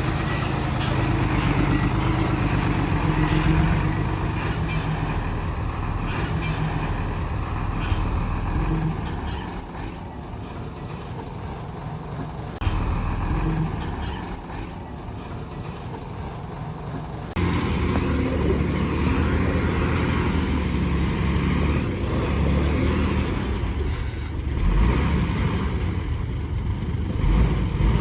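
Heavy diesel engines of earthmoving machinery running, with the sound changing abruptly about two-thirds of the way through.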